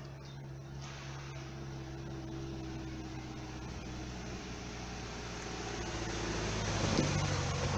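Cars driving over a railway level crossing: engine hum and tyre noise, growing louder near the end as a car passes close by.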